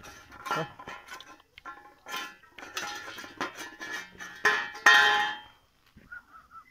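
A Bhotia dog eating from a metal bowl on a concrete floor: the bowl and the dog's metal chain clink and rattle as it feeds, with a louder ringing clatter of the bowl about four and a half seconds in. Near the end, short repeated honking calls begin.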